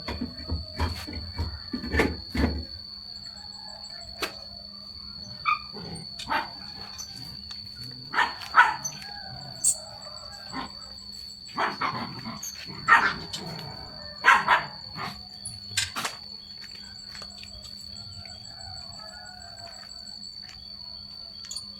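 A dog barking in several short bursts, among scattered sharp knocks, over a steady high-pitched tone.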